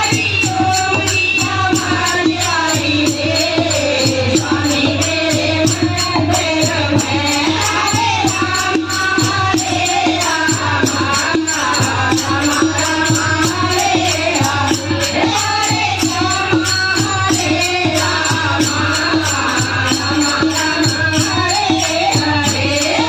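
Kirtan group singing a Hindi devotional bhajan together, over a steady beat of rattling percussion.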